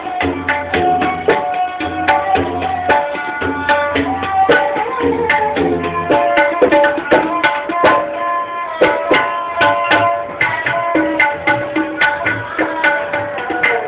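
Live Indian instrumental music: tabla strokes under a melody line that holds notes and glides between them. The drum strokes come quicker and denser about halfway through.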